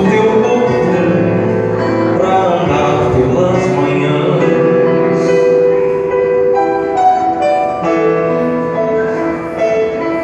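Live band playing a Portuguese-language Christian song, with a singer's voice and sustained keyboard chords.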